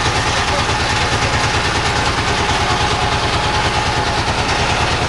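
A boat's engine running steadily with a fast, even low throb, under a constant rushing hiss.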